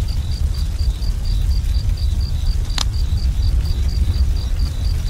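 Night-ambience sound effect of crickets chirping steadily, about four chirps a second, over a continuous low rumble, with a single sharp crackle a little past the middle.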